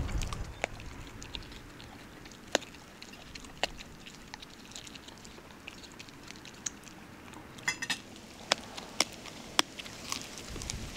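Scattered sharp clicks and taps, a few seconds apart, with a quick rattle of clicks just before eight seconds in.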